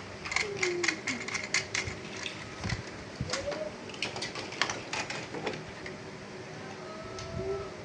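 Quick runs of light clicks and rattles, like small plastic toy train parts being handled and snapped together, densest in the first two seconds. Short low cooing calls of doves sound a few times in the background.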